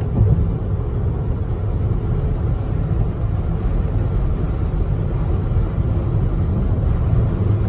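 Steady road and wind noise inside the cabin of a Rivian R1S electric SUV cruising at about 70 to 74 mph: mostly a low rumble with a lighter windy hiss above it. At this speed the wind over the roof-mounted rooftop tent and OVS 180 awning sounds pretty much normal.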